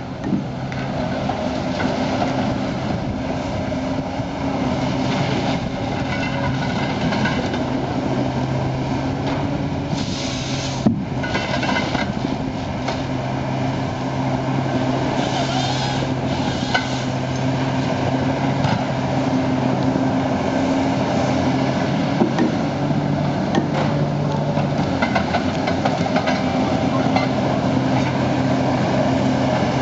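Komatsu excavator-based log processor with a Titan 22 processor head, its diesel engine running steadily under hydraulic load. Short bursts of crackling and a sharp knock about eleven seconds in come as the head feeds and delimbs a log.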